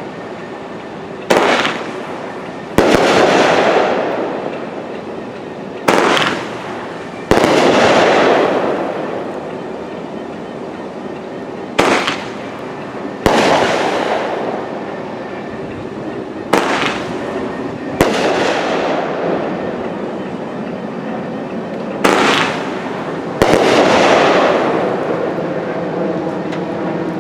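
Phantom Strike 500-gram, 12-shot cake firework firing: five shots, each a launch thump followed about a second and a half later by a loud aerial bang. Each bang trails off over a few seconds before the next shot.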